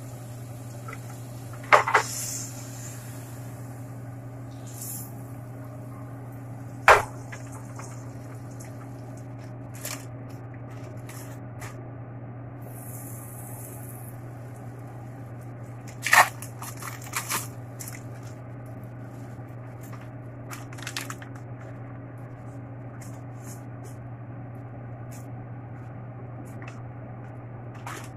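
Kitchen handling sounds over a steady low hum: three sharp knocks spread through, with smaller clicks and taps between, as a frying pan is worked to make a quesadilla.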